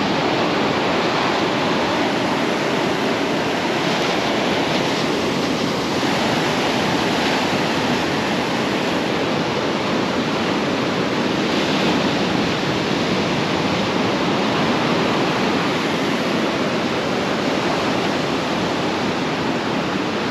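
Ocean surf breaking and washing up a sand beach: a steady rushing noise.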